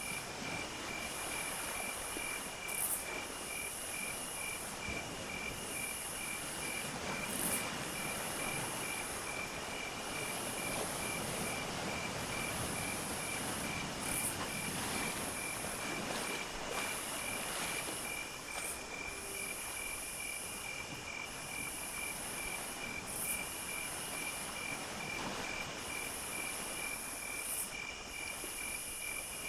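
Night insect chorus: crickets chirping in a steady, even rhythm, with a very high buzzing that runs in stretches of a couple of seconds with short pauses between. A soft hiss lies underneath.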